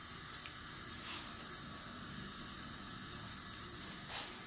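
Faint steady hiss of shop air leaking past the piston ring gaps of a cylinder held under air pressure in a Pontiac 400 V8, normal ring-gap leakage. Two faint brief sounds come through about a second in and near the end.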